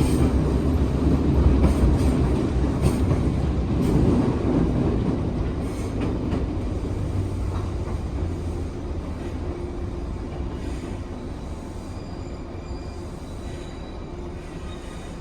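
Running noise of a JR 415 series 1500 subseries electric train heard on board: a steady low rumble of wheels on rail with a few rail-joint clicks in the first seconds. It grows steadily quieter as the train slows, with faint thin squeals appearing in the second half.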